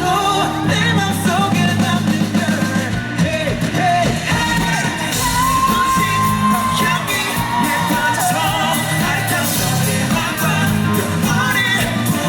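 Live rock band playing with singing, and a crowd yelling along. One long held note comes about five and a half seconds in.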